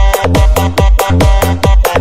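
Electronic dance music remix with a hard kick drum about four beats a second, each kick dropping in pitch, over heavy bass and repeating synth chords.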